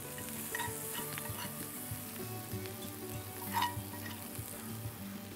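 Butter pan sauce with red onion, peppers and capers sizzling in a hot frying pan. A spoon scrapes and clinks against the pan as the sauce is spooned out, with one louder clink about three and a half seconds in.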